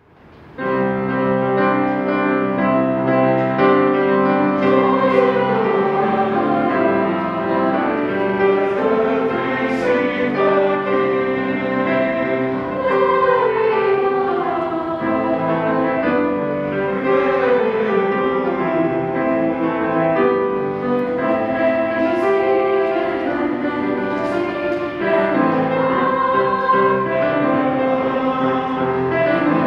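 Mixed high-school choir singing a Christmas choral piece in sustained, many-voiced chords, coming in about half a second in after a moment of silence.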